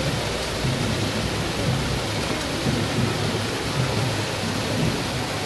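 Steady rushing of water from a small cascade falling into a pool.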